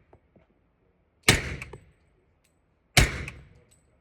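Two suppressed pistol shots from a 1911 in .45 ACP fitted with a homemade FTN3 suppressor, about 1.7 seconds apart; each is a sharp report with a short decaying tail.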